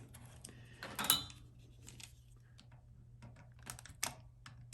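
Small plastic clicks and ticks from fingers handling a Cat 6 punch-down keystone jack and pressing the cable's wires into its slots, with a louder knock about a second in. A faint steady low hum runs underneath.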